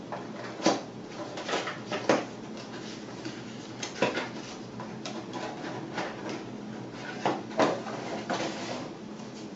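Cardboard box being opened and a plastic lightbulb camera lifted out of its packaging: scattered scrapes, taps and rustles of handling, the sharpest about two seconds in and near the end.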